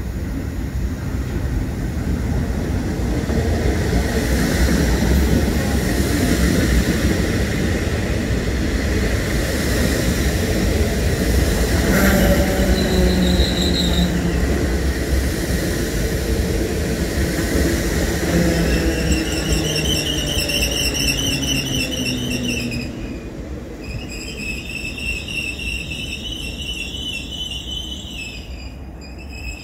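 DART electric train running past on the rails with a steady rumble of wheels. A motor whine falls slowly in pitch as the train slows, and from about twenty seconds in a high, warbling squeal is heard.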